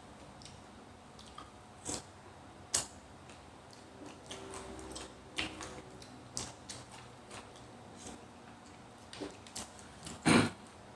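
Close-up eating sounds from a bowl of pork noodle soup: scattered small clicks and chewing noises, with a louder short burst about ten seconds in.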